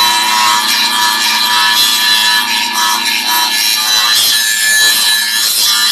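Dagmara 100 mm cordless brushless angle grinder running under load, its disc grinding into a workpiece: a loud steady whine over a harsh rasping.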